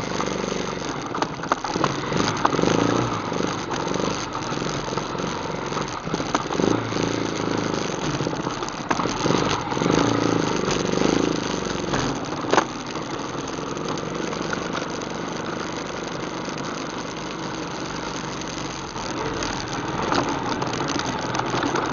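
ATV engine running steadily at low speed, with a few sharp knocks from the machine jolting over rough trail.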